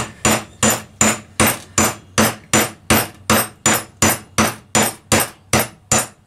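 A hammer gently tapping a new oil seal into the aluminum closing plate of a Kohler KT17 engine: light, even taps, about two and a half a second.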